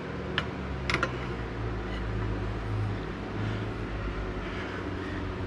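Steady low mechanical hum, with two short metallic clicks about half a second and a second in, as parts are handled on the mini four-wheeler frame.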